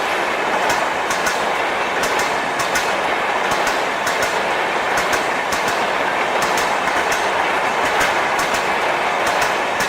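Gomti Express coaches rushing past without stopping: a steady loud rumble of wheels on rail, with clusters of sharp clicks as the bogies run over the rail joints.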